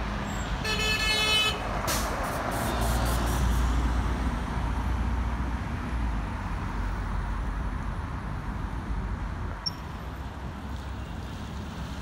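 Steady low rumble of a running vehicle, with one short horn toot just under a second in.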